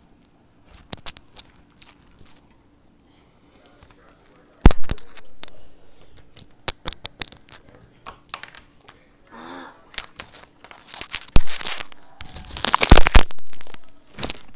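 Slime being pressed on a glass table and stretched into a thin bubble: scattered clicks, crackles and tearing pops. A sudden loud pop comes about four and a half seconds in, and a dense run of crackling fills the last few seconds.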